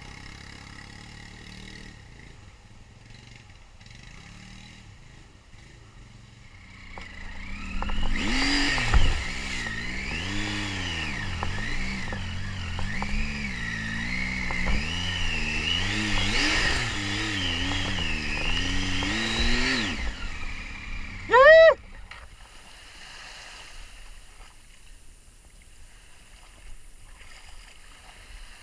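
Triumph Tiger 800XC's three-cylinder engine revving hard and unevenly for about twelve seconds while the bike is worked through deep mud, the revs swinging up and down. A single sharp rev blip, the loudest moment, follows shortly after, and then the engine sound drops away.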